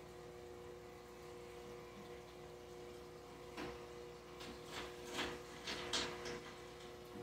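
Aquarium aeration running: a steady electric hum with faint bubbling. From about halfway through comes an irregular run of short splashy gurgles, like bubbles breaking at the water surface.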